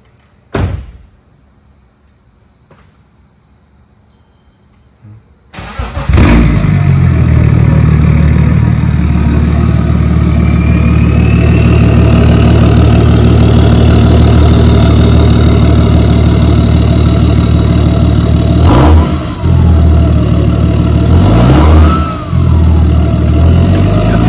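BMW X5 diesel's inline-six, its exhaust deleted and dumped open right after the downpipe, cranks and fires on its first start about five and a half seconds in, after a short knock. It then runs loud and steady, with a couple of brief revs near the end and another rev rising at the very end.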